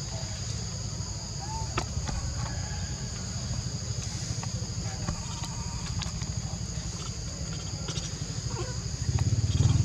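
Insects droning steadily at two high pitches, under a low rumble that grows louder near the end, with a few faint clicks and short chirps.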